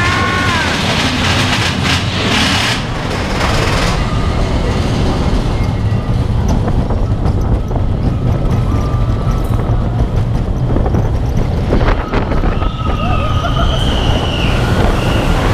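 Mine-train roller coaster cars rumbling and rattling along the track at speed, with wind buffeting the microphone. Riders scream briefly at the start and again near the end.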